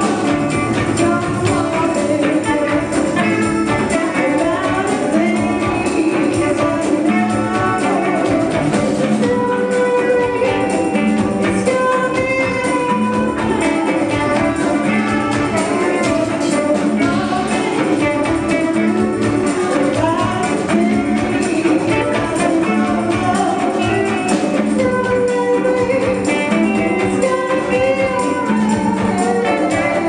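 Live band playing a reggae tune, with electric guitars, keyboard, drum kit and hand drums.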